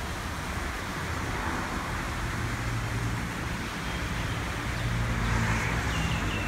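Steady street traffic noise: the hum of passing vehicles.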